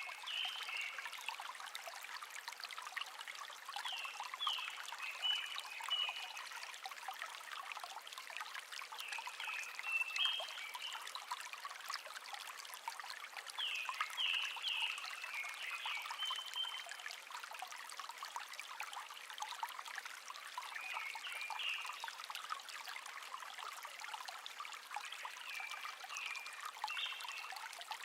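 A small stream babbling steadily, with a songbird singing a short phrase of quick falling notes about every four to five seconds, six times in all.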